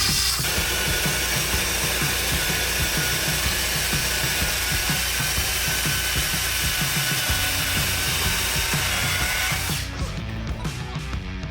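Power saw cutting through wooden barn floor joists, running steadily and stopping about ten seconds in.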